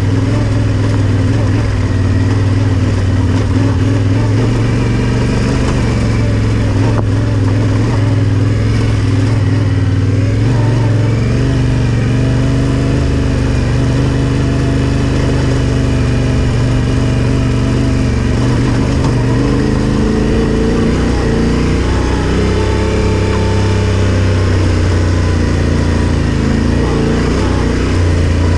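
Yamaha Ténéré 700's parallel-twin engine running as the bike rides along. The note is steady at first, then rises and falls in pitch through the last third.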